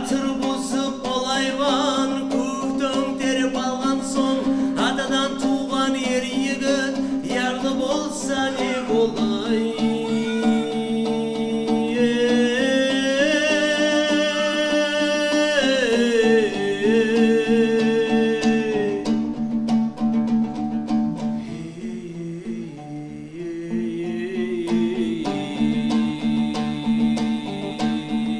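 A man sings a folk melody with long held, wavering notes over an ensemble of dombras (long-necked plucked lutes). The lutes strum steadily beneath him and keep up a low drone.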